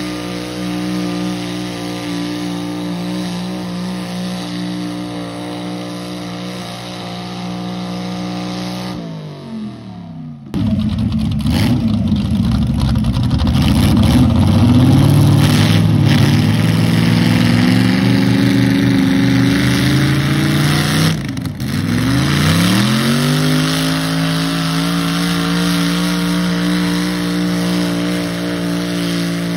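Mini pulling tractor engine screaming at full throttle under load as it drags the sled. Its revs fall away about nine seconds in. After a short break a louder run wavers and climbs in pitch, drops sharply and then climbs back to a steady high whine.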